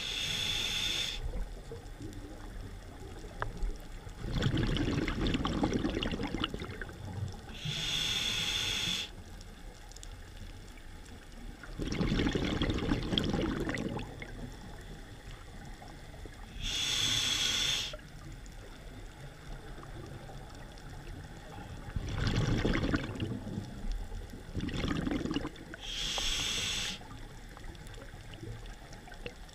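A diver's scuba regulator breathing cycle, heard underwater. There are four short, hissing inhales about nine seconds apart, and each is followed a few seconds later by a longer burst of bubbling exhaled bubbles.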